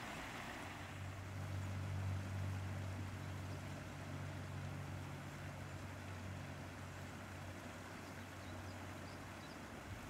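A low, steady engine hum comes in about a second in and drops away near the end, over a steady background hiss.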